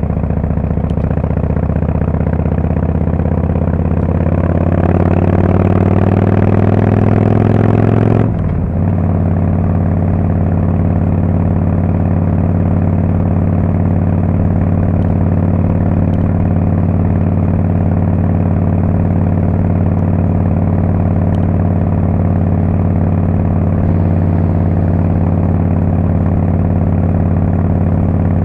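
Harley-Davidson Fat Boy S's Screamin' Eagle Twin Cam 110 V-twin through a Kesstech valved exhaust, revs climbing for about five seconds, then dropping suddenly about eight seconds in and settling into a steady beat.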